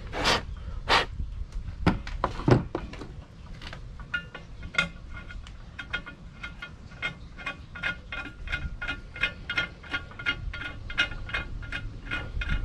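A few sharp scrapes and clicks of a metal hand tool against an aluminium 80/20 extrusion, clearing chips from its freshly tapped end. Then a regular series of short, high chirps, about three a second.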